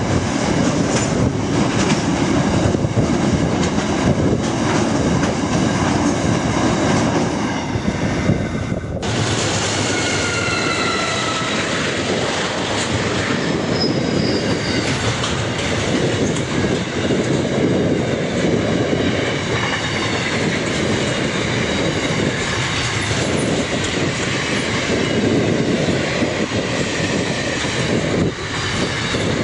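Loaded container wagons of a freight train rolling past close by, their wheels rumbling and clattering steadily over the rails. The sound changes abruptly about nine seconds in to another passing stretch of wagons, where thin high wheel squeals come and go for a few seconds.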